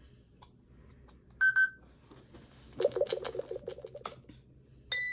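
Electronic lie detector toy judging an answer: two short beeps, then about a second of rapid pulsing electronic buzz, then a bright chime that rings on and fades, as the answer is ruled the truth.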